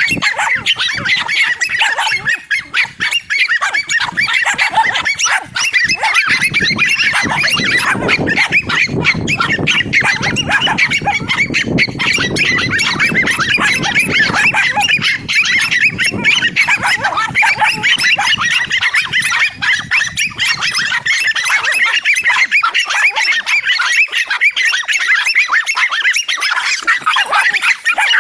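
A pack of dogs barking and yapping in a frenzy, many barks overlapping without a break.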